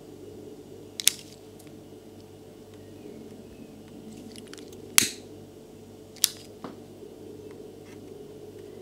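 Three loud, sharp clicks, about a second, five seconds and six seconds in, with a few fainter ticks, over a steady low hum.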